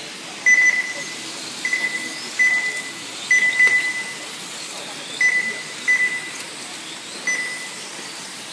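Race lap-timing system beeping as RC cars cross the timing line: short single-pitch beeps at irregular intervals, some eight in all, over a steady background hiss.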